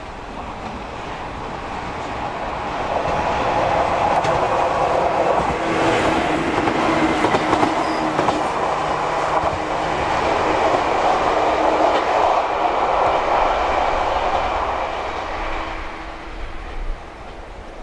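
Shinano Railway 115 series electric train passing close by. Its running noise builds over the first few seconds, stays loud while the cars go past, and drops away near the end as it leaves.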